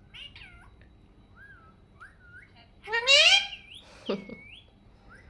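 Alexandrine parakeet making soft chirps and whistles, then a loud rising call about three seconds in, followed by a short whistle and a falling whistle.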